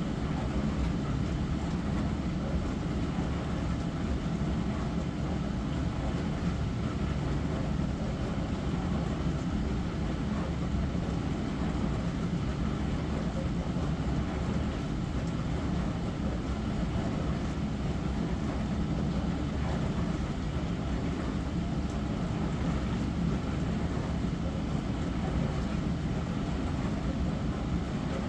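Small Hava glass-front dishwasher running its wash cycle: a steady low hum from the pump with the rush of water spraying inside.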